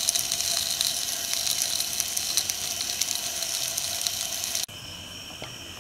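Leftover bluegill pieces and buns sizzling in a frying pan: a dense, steady crackle. Near the end it cuts to a quieter steady high chirring of crickets.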